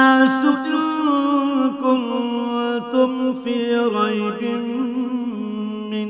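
A male qari reciting the Qur'an in Arabic in a melodic, chanted style, with long held notes and wavering ornaments. The pitch steps down about two-thirds of the way through.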